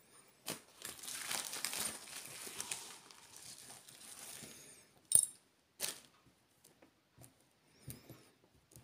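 Plastic packaging bag crinkling as it is lifted and handled for about four seconds, followed by two sharp clicks about five and six seconds in and a few fainter clicks.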